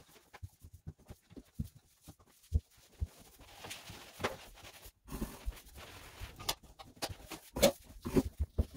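Fast-forwarded sound of wiping with a wet microfiber cloth on a bathroom mirror and then a wooden vanity cabinet: a quick jumble of rubbing with many short knocks and taps.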